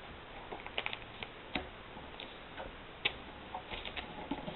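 A sheet of paper being folded and creased by hand: faint, irregular small clicks and crinkles.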